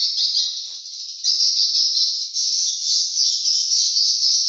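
Edible-nest swiftlets chirping as a dense, continuous high twittering that fills the enclosed house, thinning briefly about a second in before returning at full strength.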